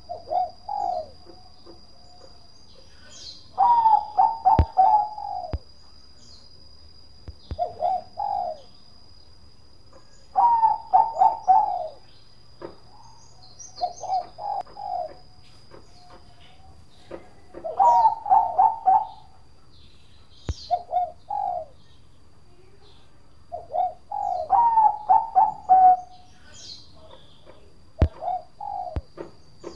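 Bangkok-line zebra dove (perkutut) cooing its song over and over, about nine phrases in all, one every two to four seconds. Each phrase is a quick run of pulsed notes ending on a held note, some longer and louder than others.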